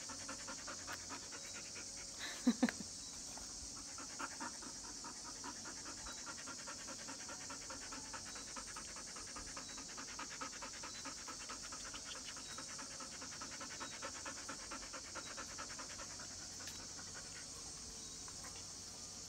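Dog panting fast and steadily, with two short, louder sounds close together about two and a half seconds in.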